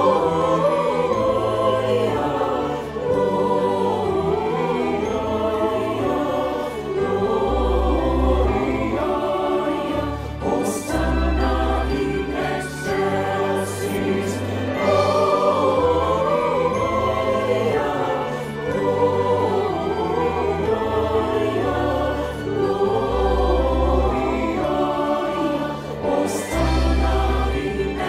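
Combined church choir singing a Christmas carol with an instrumental ensemble, long held bass notes underneath the sung melody.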